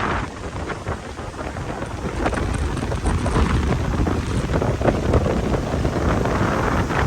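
Gusting storm wind buffeting the microphone in a heavy rumble, with a steady hiss above it.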